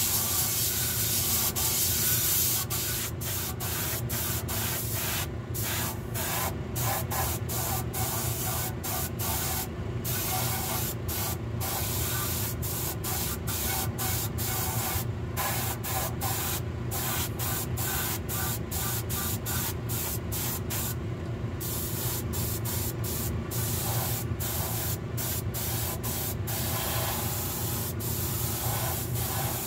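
Hiss of a small compressor-fed siphon-cup spray gun spraying water-based paint onto a model boxcar, the trigger let off and pressed again many times in short bursts. A steady low hum runs underneath.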